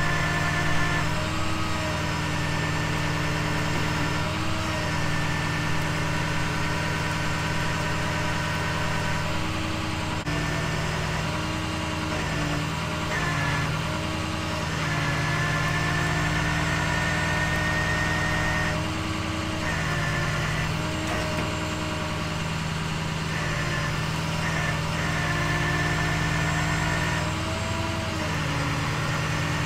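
Tow truck (wrecker) engine running steadily at idle, its speed shifting slightly a few times, with a high whine that comes and goes over it.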